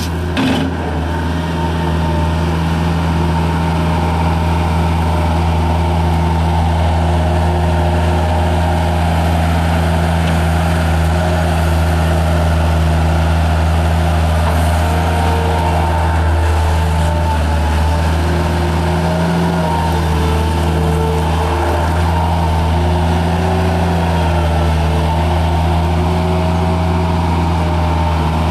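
The Kubota diesel engine of a 1997 Bobcat 753 skid steer loader running steadily, the machine described as running smoothly and in sound mechanical order.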